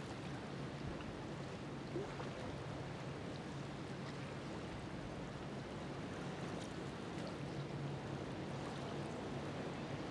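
Harbour-side ambience: choppy water lapping and rushing, with a steady low hum underneath.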